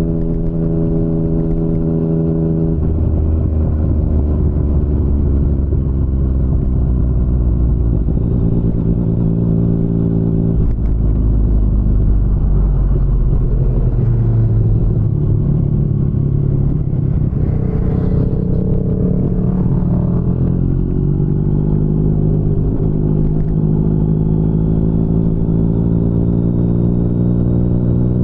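2019 Yamaha MT-09's three-cylinder engine, through an Akrapovic full-system exhaust, running under way with its pitch rising and falling as the throttle opens and closes and the gears change, with sudden steps about three and ten seconds in and a slow climb in pitch near the end.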